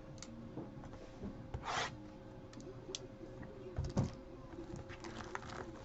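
Hands handling a shrink-wrapped trading card box, with faint rubbing and scraping of plastic wrap on cardboard and a few light clicks. A brief scrape comes just under two seconds in and a louder knock about four seconds in.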